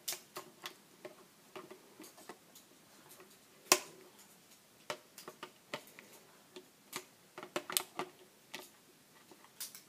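Scissors cutting through a clear plastic blister pack: a string of irregular sharp snips and plastic clicks, the loudest about four seconds in, with a quick run of them around seven to eight seconds.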